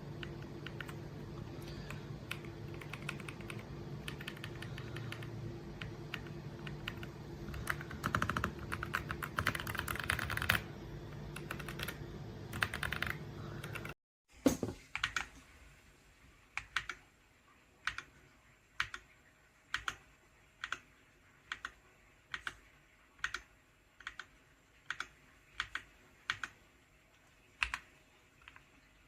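Typing on an RK Royal Kludge RKR65 gasket-mount mechanical keyboard. At first the keystrokes come over a steady low hum, with a quick run of fast typing about a third of the way in. After a brief cut near the middle, single key presses come about once a second.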